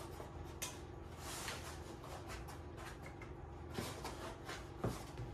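Faint handling noise as XTool D1 laser engraver frame parts are worked out of their black foam packaging insert: soft rubbing and scattered light knocks, with two slightly louder knocks near the end.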